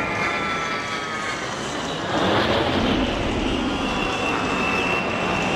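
An A-10 Warthog's twin turbofan jet engines passing in flight, with a high whine that falls in pitch, swelling to a louder rush about two seconds in, then a steady high whine over the jet noise.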